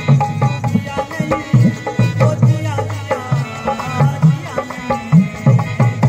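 Folk music driven by hand drums, with frequent low drum strokes under a winding melody line.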